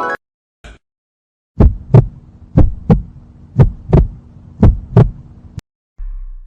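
Heartbeat sound effect: four double thumps (lub-dub), about one a second, over a steady low hum, cutting off abruptly after the fourth beat.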